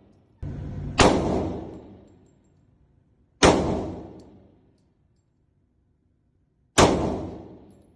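AR-15 rifle fired three times, a few seconds apart, each shot a sharp crack with a long echoing decay, and a fainter bang just before the first.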